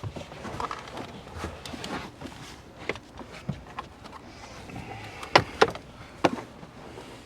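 Scattered clicks and knocks of hands working at a car's plastic interior trim. Three sharp clicks, the loudest, come a little past the middle.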